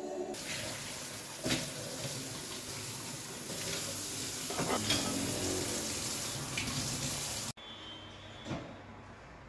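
Kitchen tap running into a stainless-steel sink while dishes are washed by hand, with a couple of short knocks of crockery. The water cuts off suddenly about three-quarters of the way through, leaving faint room sound and a single knock.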